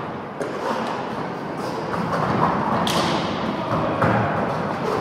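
Roller hockey play: a series of knocks and clacks from sticks, ball and skates over a steady background of play, with the sharpest knock about three seconds in.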